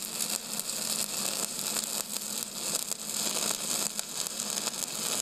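Electric welding arc crackling and hissing steadily, with a low hum underneath.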